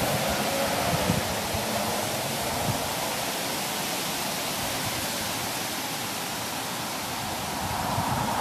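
Steady, even hiss of outdoor background noise, with a few faint low knocks in the first few seconds.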